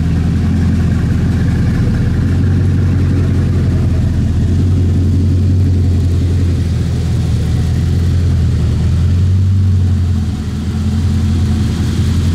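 Bugatti Chiron Super Sport 300+'s quad-turbo W16 engine idling with a steady low drone.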